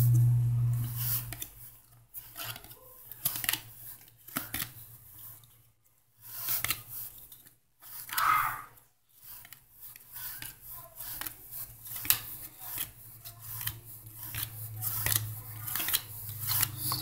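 Football trading cards being flipped through by hand, each card sliding off the stack with quick, irregular swishes and clicks of card edges. A steady low hum sits underneath at the start and again near the end.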